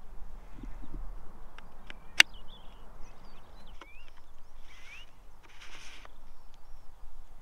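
Hands working a 3D-printed large-format pinhole camera: one sharp plastic click about two seconds in and two brief sliding scrapes a little past the middle as the dark slide is handled at the film holder. Small birds chirp lightly behind, over a low wind rumble.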